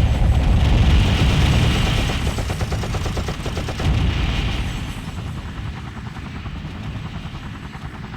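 Rapid machine-gun fire over a heavy low rumble, as a battle sound effect; it swells briefly about four seconds in, then dies down over the last few seconds.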